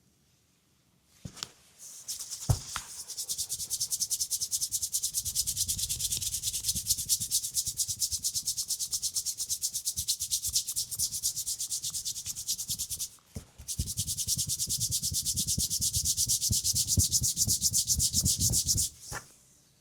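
Hands rubbing briskly back and forth over bare skin in a fast friction massage of the leg, a rapid rhythmic hiss pulsing several times a second. It runs in two long bouts with a short break about 13 seconds in, and there is a sharp tap just before the first bout gets going.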